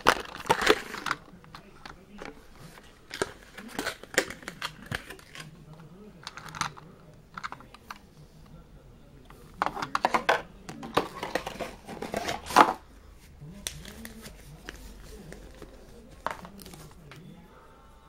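Clear plastic blister packaging and a plastic bag being handled, with irregular crinkling, rustling and sharp clicks in short clusters, the loudest near the end.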